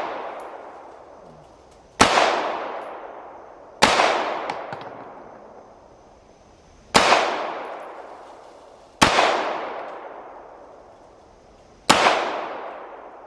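Five gunshots fired at uneven intervals, each a sharp crack followed by a long echo that fades out over about two seconds.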